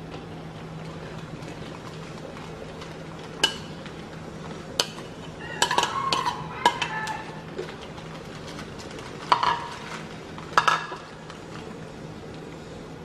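Cooking clatter over a steady low hum and hiss from a boiling pot of soup on a gas burner. A ceramic plate clinks and scrapes on the rim of the stainless-steel pot as raw shrimp are tipped in, near the middle. Then a metal spoon knocks against the pot while stirring, a few sharp clinks that ring briefly.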